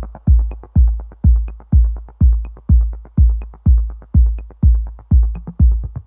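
Electronic dance music with a heavy kick drum on every beat, about two a second, and a light high tick about once a second.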